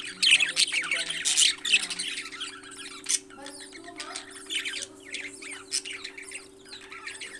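Parrots chirping and squawking in many quick, overlapping calls, busiest in the first couple of seconds.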